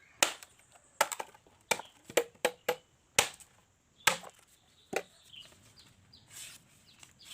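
Hammer blows on steel being forged: about eleven sharp, irregular strikes with a short ring, ending about five seconds in.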